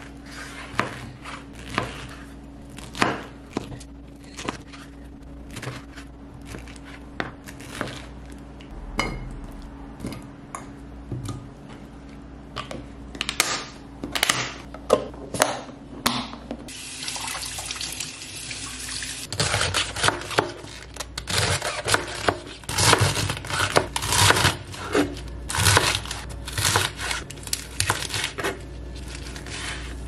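Chef's knife cutting through a peeled pineapple onto a cutting board, one sharp knock every second or so. A little past halfway a tap starts running with a steady splashing hiss, and a fast run of knife strikes and clatter follows, chopping romaine lettuce on the board.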